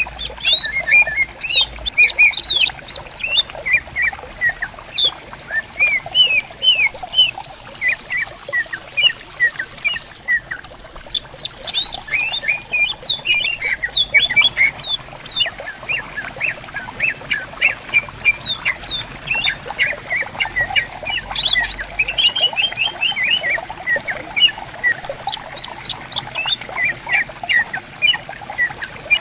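Cucak ijo (green leafbirds) singing in fast, varied runs of chirps and whistles, several birds calling back and forth, over the steady rush of a clear stream.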